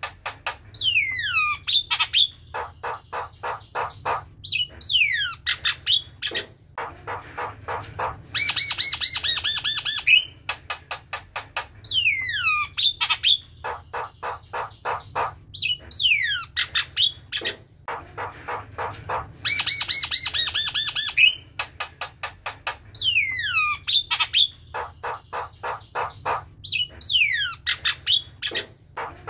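Javan myna singing: falling whistled notes, each followed by rapid runs of short, harsh, chattering notes and squawks. The phrase repeats every few seconds.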